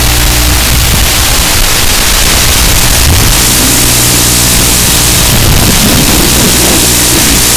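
Loud, steady hiss and static from the analog FPV video link's audio channel, as recorded by the goggles' DVR. A low buzzing hum runs underneath and rises and falls in pitch a few times.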